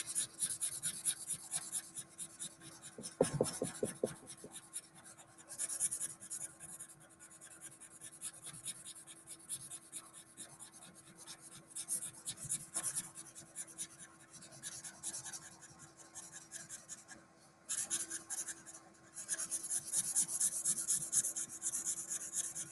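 Felt-tip marker scribbling fast back and forth on paper, coloring in an area in quick scratchy strokes, with a short pause near the end. A brief low knocking comes about three seconds in.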